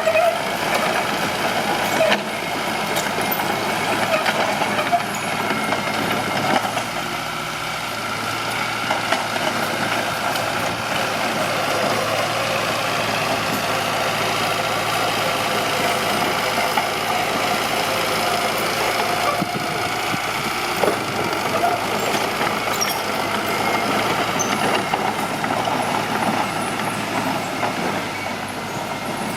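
Mitsubishi BD2H crawler bulldozer's diesel engine running steadily, with a few short knocks over it.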